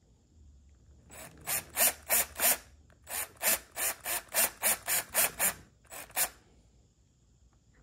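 Cordless DeWalt drill/driver in low gear driving a Phillips screw into a thick plastic handguard, in about fifteen short rasping bursts as the screw is started slowly so as not to strip the plastic or the screw head.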